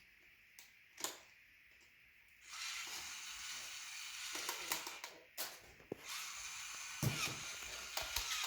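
Toy screwdriver driving a plastic screw into a take-apart dinosaur toy: a steady mechanical buzz with clicking, starting about two and a half seconds in, with scattered knocks of plastic parts.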